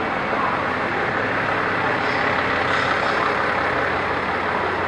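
Taiwan Railway passenger train moving slowly past along the platform: a steady rumble of wheels and running gear over a low, even hum.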